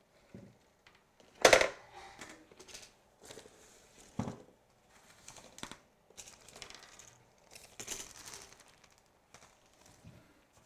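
Handling sounds of sewing machine accessories and packaging: a sharp knock about one and a half seconds in, another about four seconds in, with small clicks and rustling between.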